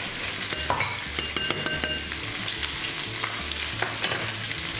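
Chicken thighs and drumsticks sizzling steadily in hot oil in a frying pan, with a spoon clinking and scraping in a glass bowl about half a second to two seconds in as tomato paste is stirred into a sauce.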